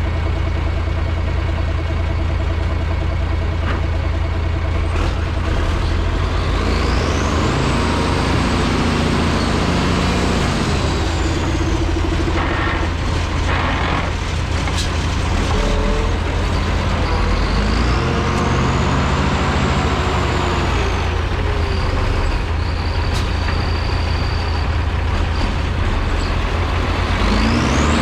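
Heavy diesel equipment engine idling, then revving up and back down repeatedly, a high whine climbing and falling with the revs each time.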